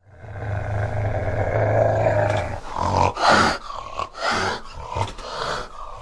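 An animal growling low and steadily for about two and a half seconds, then giving a run of short, harsh snarls.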